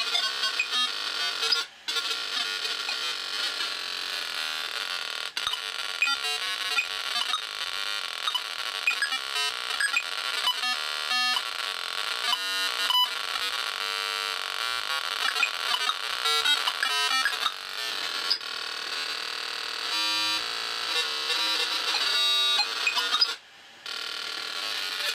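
Small speaker driven by an ATmega microcontroller, putting out a harsh, chaotic electronic noise of shifting tones and static-like crackle that sounds like a garbled radio signal. It cuts out briefly twice, about two seconds in and near the end.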